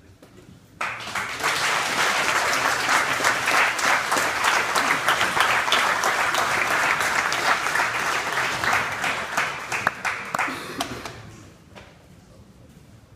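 Group of people applauding, starting suddenly about a second in, holding steady, then dying away near the end.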